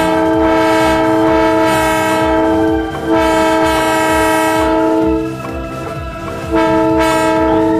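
Multi-tone train-style horn of an odong-odong tour-train vehicle, sounding a loud steady chord in three blasts. The first ends about three seconds in, the second lasts about two seconds, and the third starts near the end. A low, regular engine chug runs underneath.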